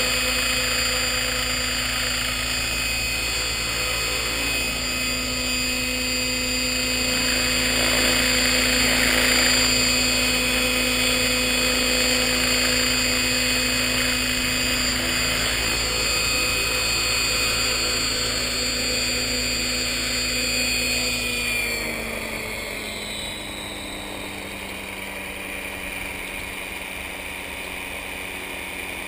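Align T-Rex 600 RC helicopter's rotors and drive running with a steady whine at flying head speed. About three quarters of the way through, the pitch falls and it carries on lower and quieter. The vibration problem has just been repaired.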